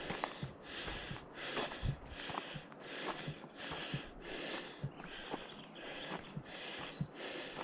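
A hiker breathing hard and fast close to the microphone, with quick, even breaths while climbing a steep trail. Short low knocks of footsteps on the trail fall between the breaths.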